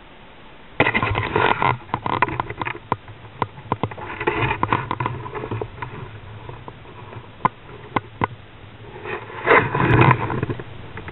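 Water splashing and sloshing with sharp clicks and knocks as a landing net holding a flounder is worked at the surface and lifted, water pouring out through the mesh. The splashing comes in bursts: about a second in, around four seconds in, and loudest near ten seconds.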